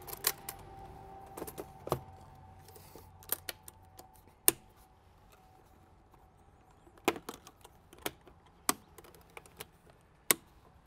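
Irregular sharp clicks and knocks from a tractor's air cleaner housing as its filter elements are seated and its cap is fitted and latched shut, about nine in all, the loudest about four seconds in and near the end.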